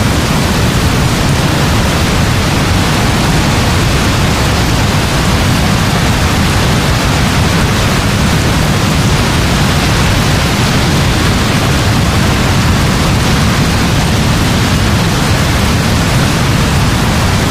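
Heavy rain falling steadily: a dense, even rushing hiss with a strong deep rumble underneath, unchanging throughout.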